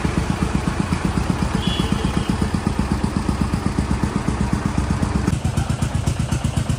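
New Holland 3630 diesel tractor engine running with a steady, rapid pulsing beat. A little after five seconds in, its sound turns duller.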